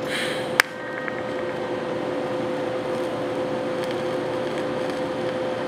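Arc welder laying a tack weld: a sharp snap about half a second in as the arc strikes, then a steady hiss with a constant hum underneath.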